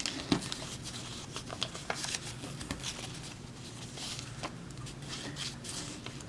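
Folded paper crackling and crinkling in short, irregular clicks as pleated origami creases are pressed and reversed by hand.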